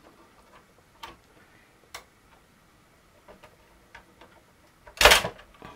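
Faint, scattered clicks of a small screwdriver and tiny screw working against plastic model parts, single ticks roughly a second apart, then one louder, short noise about five seconds in.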